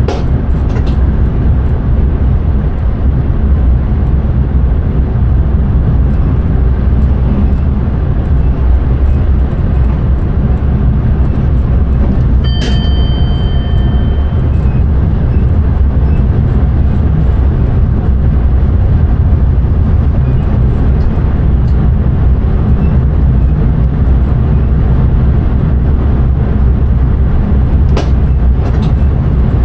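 Intercity train running at speed, heard from the driver's cab: a steady, loud low rumble of wheels on rail. About halfway through comes a sharp click with a brief ringing tone, and there is another click near the end.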